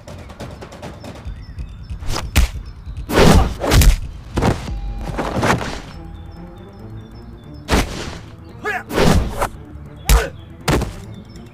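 Action-style background music with a series of sudden punch and impact sound effects and swooshes laid over a staged hand-to-hand fight, coming in irregular clusters of two or three.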